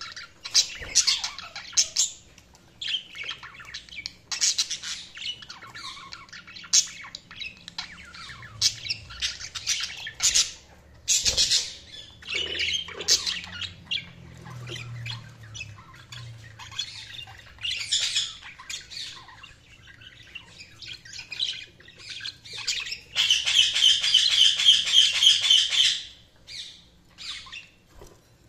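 Budgerigars chirping and squawking in short, irregular calls, with a louder run of rapid chattering warble a little before the end.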